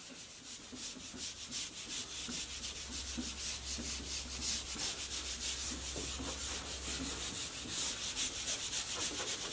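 Whiteboard eraser wiping across a whiteboard in quick back-and-forth strokes, several a second, a steady scrubbing hiss.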